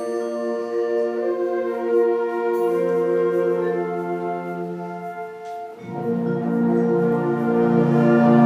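A school wind band of brass and woodwinds (tuba, saxophones, clarinets) playing slow, held chords. The chords change twice, and about six seconds in the band swells louder as the low brass comes in.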